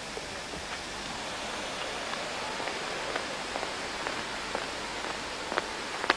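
Steady outdoor noise, an even hiss, with a few sharp ticks near the end.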